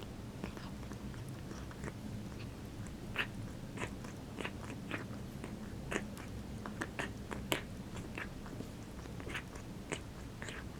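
A cat's breathing recorded up close, heard as a run of irregular small clicks and crackles over a steady low hum; this is the wheezing, whistling breath of a cat with a breathing problem.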